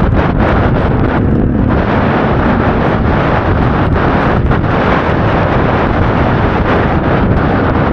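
Loud, constant wind buffeting the microphone on a KTM EXC 300 two-stroke enduro motorcycle riding through a snowstorm, with the bike's engine under the wind noise.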